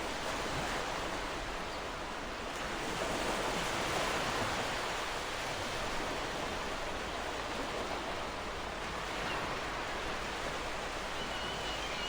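Ocean waves on a shore: a steady hiss of surf that swells slightly about three to four seconds in.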